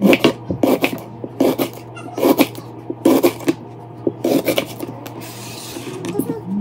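Chef's knife slicing a knob of fresh ginger root on a plastic cutting board, each cut ending in a tap on the board, about one cut every three-quarters of a second.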